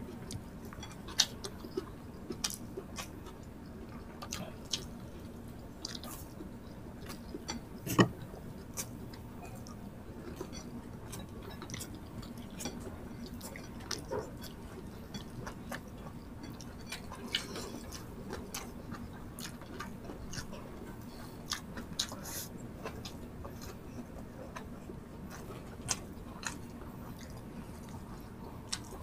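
Two people eating rice and tocino with their hands: chewing, with many short, soft mouth and finger clicks scattered throughout and one louder click about eight seconds in.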